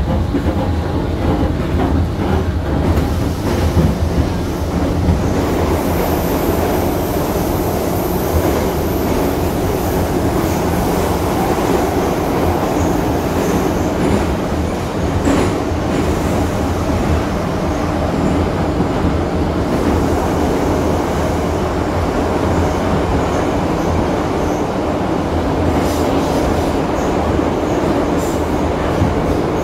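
Moscow Metro car running at speed through a tunnel: a steady loud rumble of wheels on rails with a deep hum. A thin high squeal comes in about six seconds in for a few seconds, and there is a single knock about halfway through.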